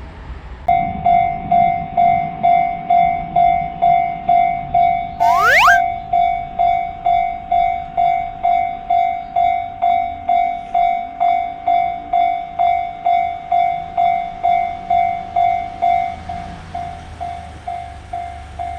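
Japanese railroad crossing warning bell ringing steadily at about two strikes a second, over the low rumble of a passing train. About five seconds in a short rising whistle sounds, and the bell gets quieter near the end.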